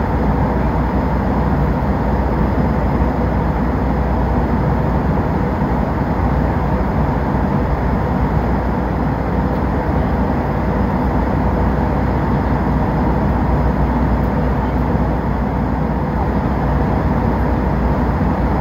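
Steady jet airliner cabin noise in flight: an even, low rushing of engines and airflow with a faint steady hum.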